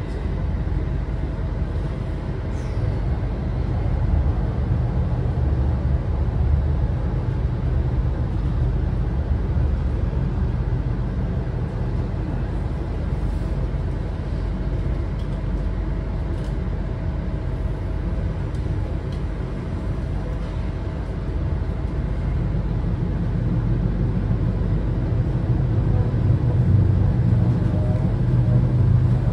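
Steady low rumble of a vehicle in motion, growing slightly louder near the end, with a faint steady hum and a few light clicks.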